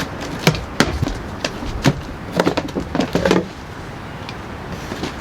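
A series of irregular clicks and knocks, some sharp and light, a few duller, busiest in the first three and a half seconds.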